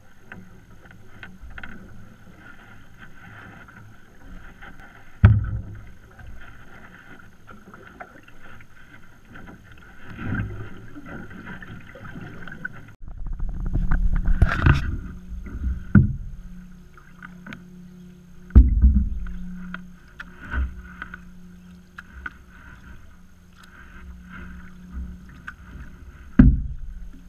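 A canoe being paddled, heard from a camera fixed to its hull: steady water and hull noise, broken about six times by heavy low knocks of the paddle or gear against the canoe.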